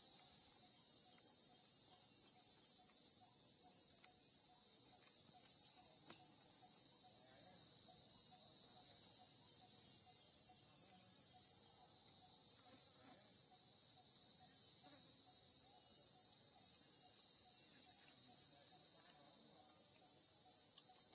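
Steady, high-pitched chorus of insects buzzing without a break.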